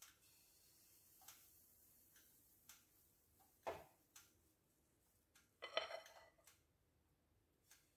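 Near-silent kitchen with scattered faint clicks and two light knocks, about three and a half and six seconds in, of a metal ladle and cookware being handled while batter is poured.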